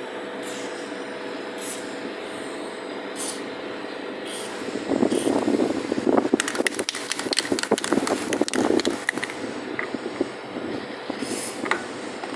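A steady machine hum. About five seconds in, a few seconds of loud, irregular clattering and clicking begin, then settle back to the hum.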